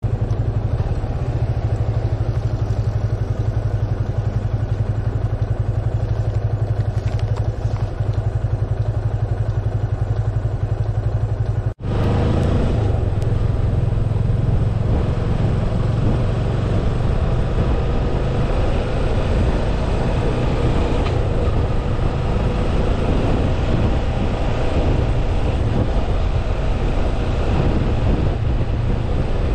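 Yamaha FZS25 motorcycle's single-cylinder engine running under way, a steady low drone. About twelve seconds in it drops out for an instant, then carries on.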